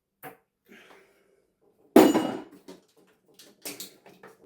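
Loose parts from a dismantled television being put away. A loud clatter about two seconds in rings briefly, like hard pieces dropped into a container, and is followed by a few lighter clicks and knocks.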